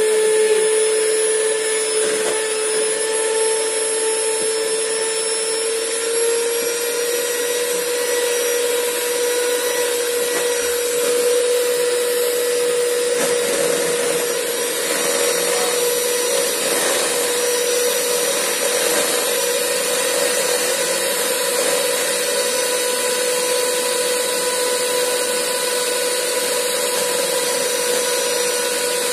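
Electric hand mixer running steadily with a motor whine as its beaters work through cake mixture in a stainless steel bowl. Its pitch rises a little about six seconds in.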